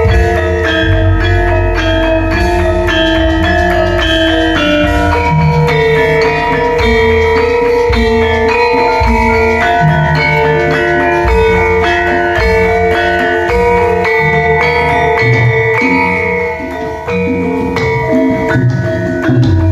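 Bronze Javanese gamelan ensemble playing a gending: struck metallophone and gong-chime notes ringing on over sustained tones, with low drum strokes underneath.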